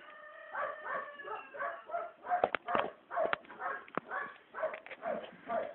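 Short whimpering animal cries repeating about three times a second, with a few sharp knocks mixed in.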